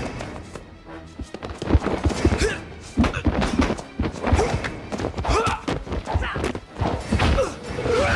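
Film fight sound effects: a rapid run of punch and kick impacts and body thuds, with short grunts from the fighters, over a background music score.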